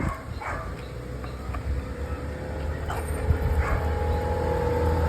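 A motor vehicle engine running with a steady hum that rises slowly in pitch, and a few short dog barks over it.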